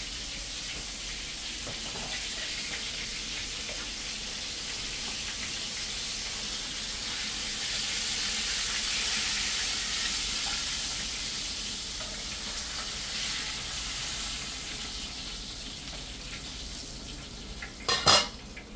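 Snapper slices frying in hot oil: a steady sizzle that swells in the middle. There are a couple of sharp knocks near the end.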